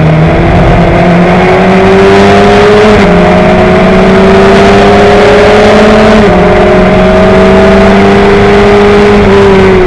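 Onboard sound of a Tiga SC84 Sports 2000 racer's 2-litre Ford four-cylinder engine at full throttle, loud and close. The pitch climbs slowly as the car pulls, then drops in one gearshift about six seconds in.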